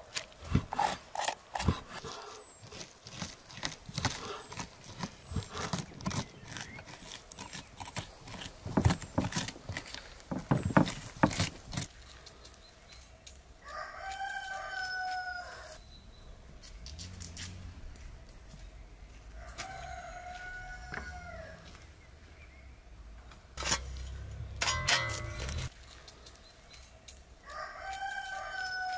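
A rooster crowing three times, several seconds apart, starting about halfway through. Before that comes a run of sharp clicks and cracks.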